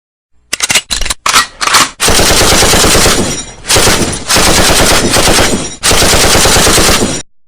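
Machine-gun gunfire sound effect: a few separate shots, then three long bursts of rapid automatic fire with short pauses between them, cutting off abruptly near the end.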